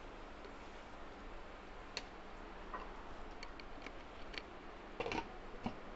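Thick chicken gravy simmering in an open pan: a faint steady hiss with scattered small pops and clicks from bursting bubbles, the loudest cluster about five seconds in.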